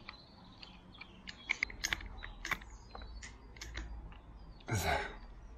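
Irregular sharp clicks and small mechanical knocks of hand tools working a thick electrical cable, with one louder, short rasping sound near the end.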